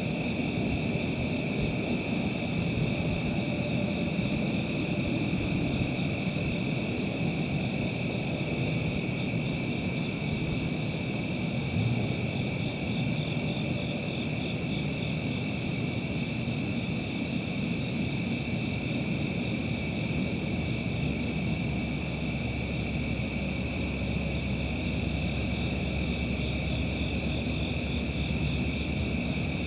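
Night-time outdoor ambience: a steady chorus of insects trilling in a few high pitches over a low, even rumble.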